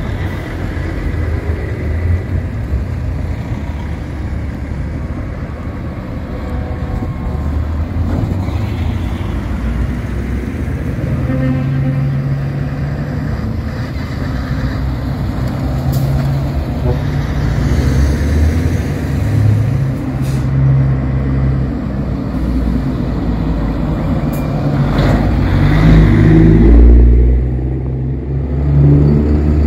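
Diesel trucks and a van driving out one after another at low speed, engines running at a steady low rumble. The engine sound swells loudest near the end as a DAF LF box truck pulls out close by.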